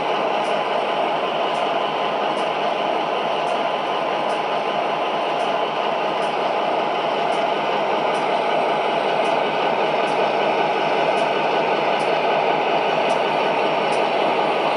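O gauge model diesel locomotives' onboard sound systems playing a steady idling prime-mover sound through their small speakers, thin and without deep bass, with a faint tick about once a second.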